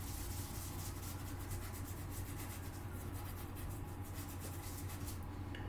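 A brush scrubbing isopropyl alcohol under a soldered chip on a PS5 motherboard in quick, repeated rubbing strokes, cleaning flux residue from beneath the chip, over a steady low hum.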